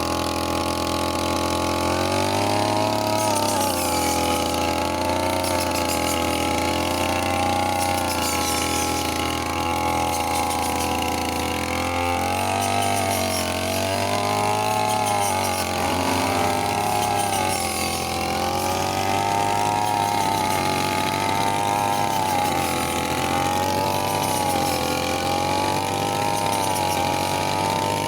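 Brush cutter's small engine running at high speed, its pitch rising and falling repeatedly as the blade cuts through rice stalks.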